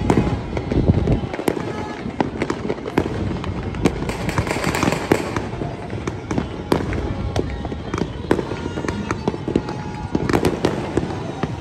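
New Year fireworks and firecrackers going off all around: a dense, continuous run of overlapping sharp bangs and crackles. A longer hissing crackle comes about four seconds in.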